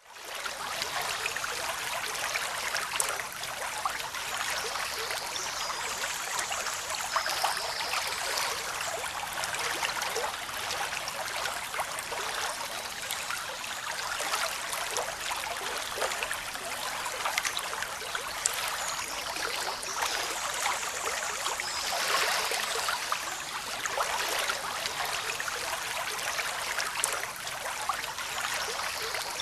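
Steady water sound, a continuous splashing and trickling with fine crackle and only gentle swells in loudness, rising in at the very start.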